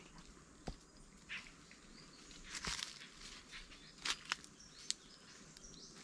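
Footsteps on a forest trail: irregular steps, with a few louder ones a little past the middle.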